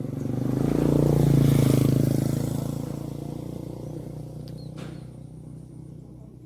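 A motor vehicle passing by: its engine swells to a peak about a second and a half in, then fades away.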